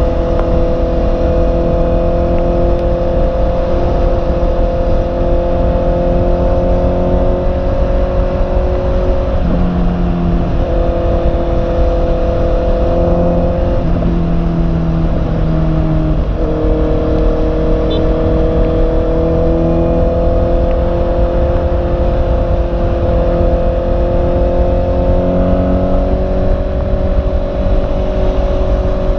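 Honda CB650R's 649 cc inline-four engine running at a steady cruise. The engine note dips and picks up again a few times between about ten and seventeen seconds in, then rises slowly as the bike gathers speed.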